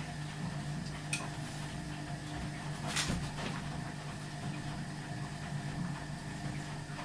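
Ardo washing machine running: a steady low hum, with a light knock about a second in and a sharper clatter about three seconds in.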